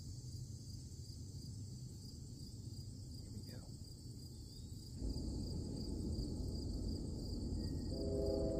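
Steady insect chorus, a high buzzing drone at two pitches. About five seconds in, a louder low rumble comes up under it.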